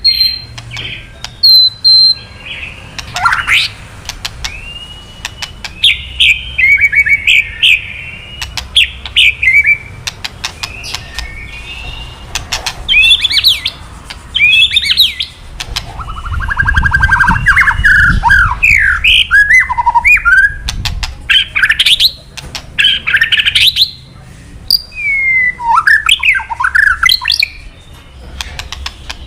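White-rumped shama calling in quick, harsh bursts: sharp clicks and rattling 'kretekan' notes mixed with fast whistled sweeps and short trills, with a longer buzzy rattle about halfway through. This is the agitated call of an excited male.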